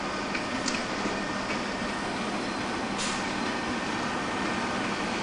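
Electric locomotive moving slowly through a station, with a steady running and blower noise. A few light clicks come in the first second and a short hiss about three seconds in.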